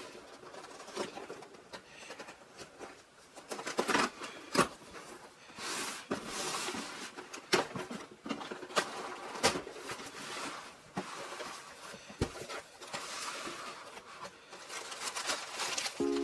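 A cardboard shipping box being opened by hand: the packing tape along the seam is slit and the flaps pulled open, giving irregular scrapes, rubs and sharp knocks of cardboard. Crumpled packing paper rustles as the box opens. The loudest knocks come about four seconds in.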